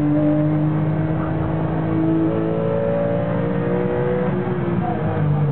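Porsche 996 GT3 RS flat-six engine heard from inside the cabin, running steadily under load, its pitch climbing slowly in the middle as the car accelerates.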